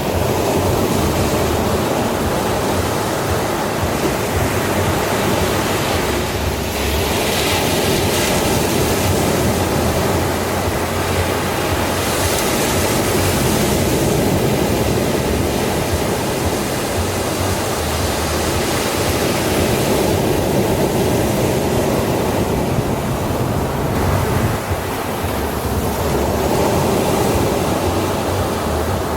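Ocean surf washing onto a sandy beach: a continuous rushing wash with a few brighter surges as waves break.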